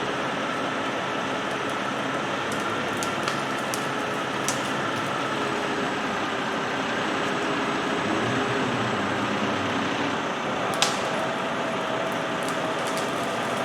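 Steady mechanical noise, like a running engine, with a faint hum and a few sharp clicks, the loudest about eleven seconds in.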